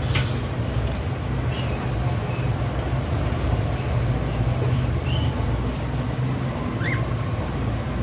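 A steady low rumble with a few short, faint budgerigar chirps over it.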